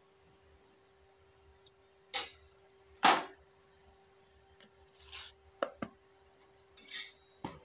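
A flat spatula scraping and knocking against a tawa as a paratha is pressed on the griddle, in about seven short strokes, the loudest about two and three seconds in, over a low steady hum.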